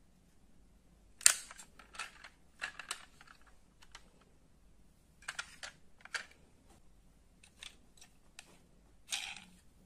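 Diecast model cars being handled: irregular short clicks and clatters of small metal and plastic parts, the sharpest about a second in.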